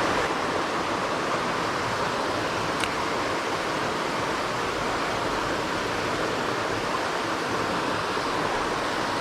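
Steady rushing of a small waterfall spilling into a creek pool.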